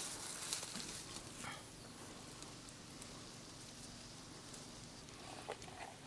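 Faint rustling of blueberry shrubs with scattered light ticks as berries are picked by hand.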